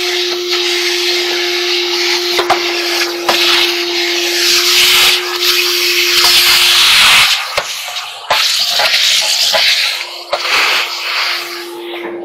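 Vacuum cleaner running, its nozzle worked around inside a clothes dryer's cabinet. The rushing hiss of air rises and falls as the nozzle moves, and the motor's steady whine drops away for a few seconds in the middle. There are a few sharp knocks of the wand against the cabinet.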